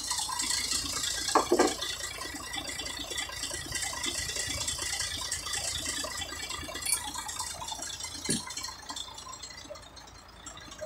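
Truck engine idling with a steady rattle and hiss, and two short knocks, one about a second and a half in and one near eight seconds.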